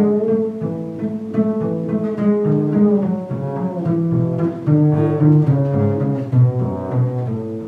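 Upright bass playing a run of single notes: an A major scale in fourths, fingered with the 1-2 fork. The last note fades out near the end.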